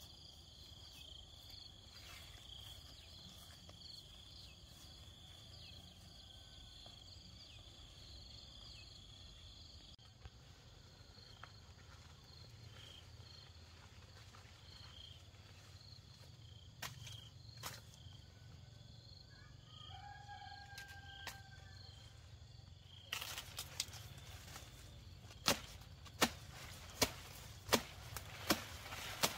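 Insects chirping and buzzing steadily. Near the end come a series of sharp chopping strikes about once a second, sugar cane being cut.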